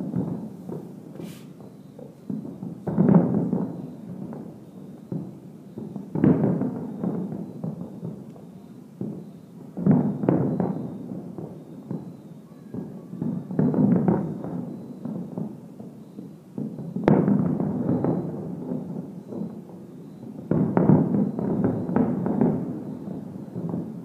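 Fireworks display heard from far off: a volley of aerial shells bursting every three to four seconds, six volleys in all. Each volley is a cluster of booms that rolls and echoes for a second or two before the next.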